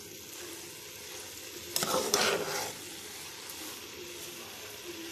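Grated carrots and sugar sizzling steadily in a pot as their juices cook off, with a ladle stirring and scraping through them in a louder stretch about two seconds in.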